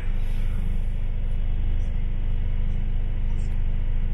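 Inside a London bus: steady engine and road rumble as the bus drives along.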